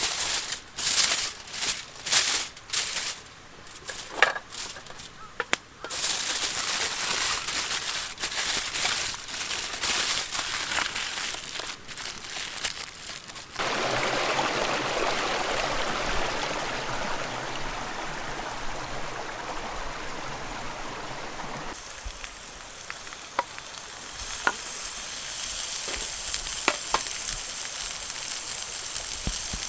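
Pork loin sizzling and frying in a pan, a steady hiss with a few sharp crackles. A run of sharp knocks and clatter comes first.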